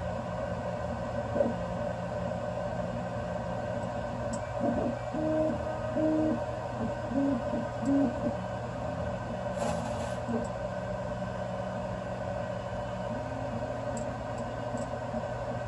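BIBO Touch X dual-extruder 3D printer printing: its cooling fans hum steadily while the stepper motors sound short pitched notes as the print head moves, with a run of them about five to eight seconds in.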